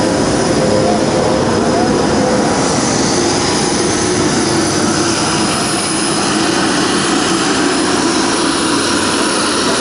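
Aircraft engines running, a loud steady noise with a faint high whine over it.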